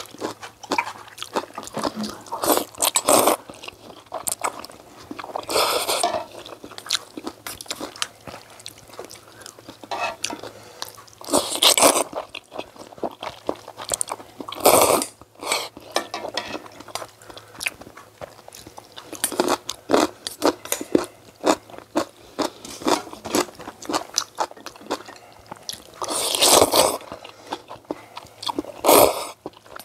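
Close-miked eating of oyster and maesaengi noodle soup: continual chewing and wet mouth clicks, broken by about five louder slurps, each lasting about a second.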